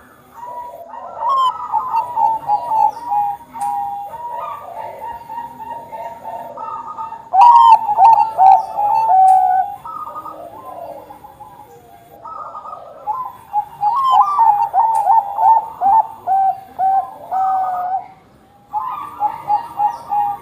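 Bangkok-strain zebra dove (perkutut) cooing in loud, repeated rolling phrases, with short pauses about ten seconds and eighteen seconds in.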